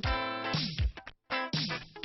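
Background music: an upbeat track with pitched notes over a beat of deep, falling drum hits, with a short break just after the middle.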